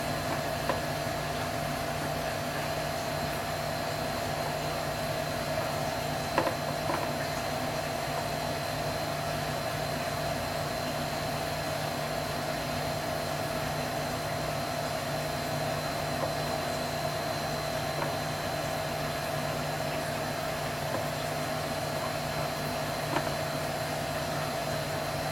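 Steady machine hum and whir, unchanging throughout, with two faint clicks about six to seven seconds in.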